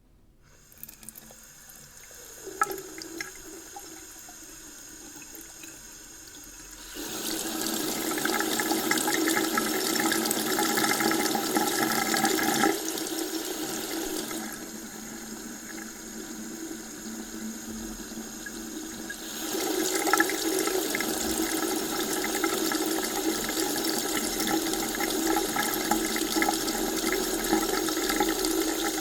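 Water running from a tap, starting faint with a few splashes, then growing louder about seven seconds in. It eases off around thirteen seconds and runs louder again from about twenty seconds.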